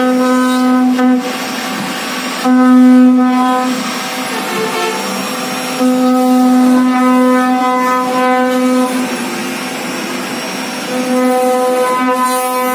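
Air-cooled spindle motors of a multi-head CNC wood router running while carving a wooden panel, a steady high-pitched whine that swells louder several times for a few seconds at a time.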